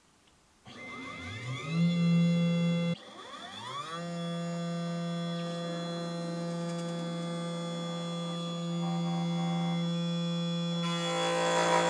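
Pocket NC desktop CNC mill's spindle spinning up with a rising whine, then running as a steady pitched hum with many overtones. It cuts off about three seconds in, spins up again and holds steady, and a rougher hiss joins near the end.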